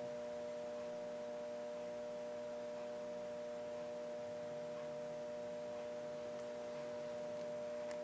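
Steady electrical hum made of several fixed tones, with a couple of faint light clicks near the end as small spring parts are handled.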